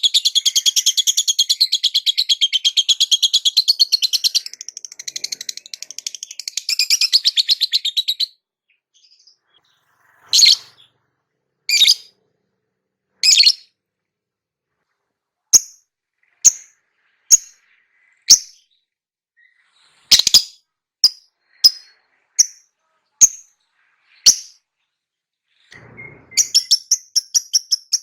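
Lovebird chattering in a fast, unbroken stream of high chirps. About eight seconds in it breaks into single sharp chirps spaced roughly a second apart, and the fast chatter starts again near the end.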